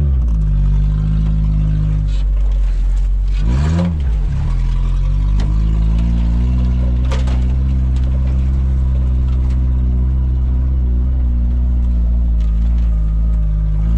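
Suzuki Samurai 4x4 engine running under load while off-roading. Its note swings up and down briefly around the start and again about four seconds in, then holds steady, with a single knock about seven seconds in.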